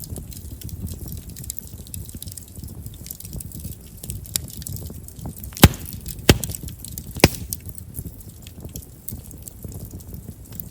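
Chestnut firewood burning in an open fire: a low rumble of flames under steady small crackles, with three sharp pops a little past halfway. Chestnut's large pores make it a wood that pops readily.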